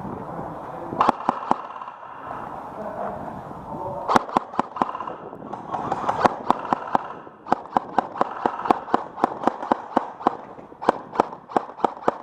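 Airsoft gun firing single shots as covering fire, each a sharp pop: a few about a second in, a burst of several from about four seconds, then a steady string at about three shots a second from about six seconds in.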